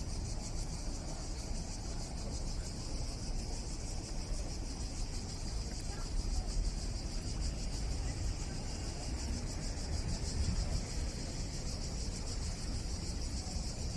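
Cicadas buzzing in a steady, unbroken high drone, over a continuous low rumble.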